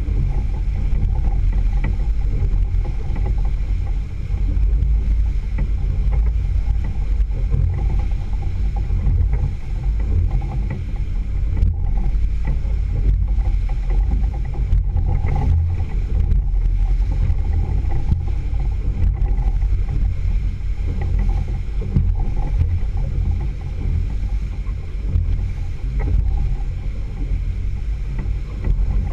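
Outboard motor running steadily on a small boat under way, a constant low rumble with the rush of water from the churning wake along the hull.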